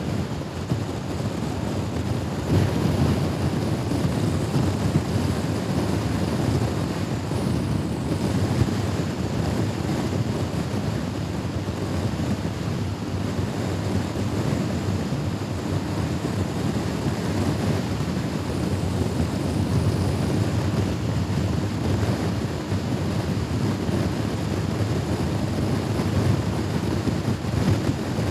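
Steady rush of wind on the microphone of a Honda Forza scooter riding at speed, with the scooter's engine running underneath.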